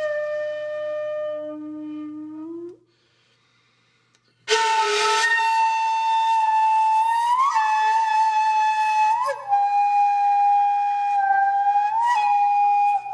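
Solo flute-like wind instrument playing long held notes, sliding up in pitch into several of them. It stops briefly about three seconds in, then comes back louder on a higher note.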